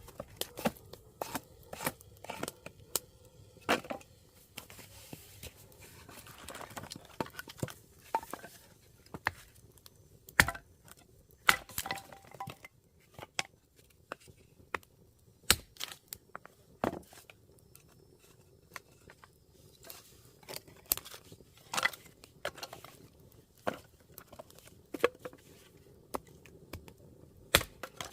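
Irregular clicks and knocks of objects being handled, with a short rustle about six seconds in.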